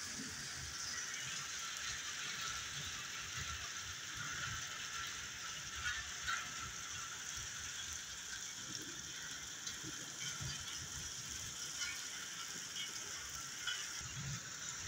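Heavy rain falling, a steady hiss, with a low irregular rumble underneath.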